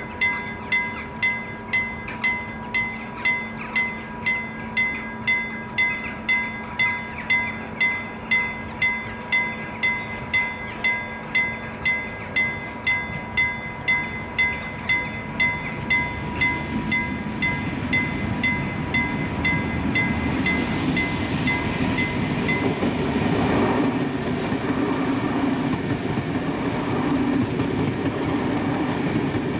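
Level-crossing warning bell ringing in a steady beat of a little under two strokes a second. A Pendolino Sm3 electric tilting train approaches with a rumble that grows from about sixteen seconds in, then passes over the crossing, its wheel and running noise drowning out the bell.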